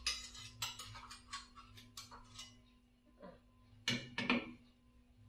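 Metal kitchen tongs clicking and clacking against a frying pan while slices of bread are turned: a quick series of light clicks over the first two and a half seconds, then two louder clacks about four seconds in.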